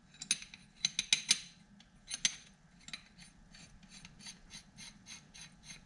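Threaded metal end cap being screwed by hand onto a rifle barrel's outer sleeve. A few sharp metallic clicks come first, then a regular run of short scraping strokes, about four a second, as the threads turn.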